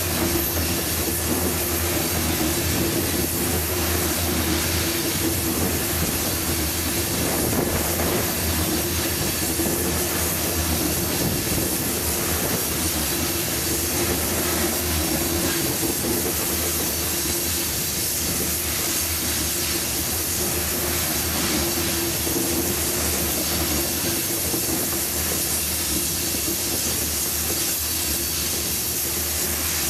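Coal hopper cars of a CSX unit coal train rolling past through a curve: the steady, unbroken noise of steel wheels on the rails, with no locomotive engine in it.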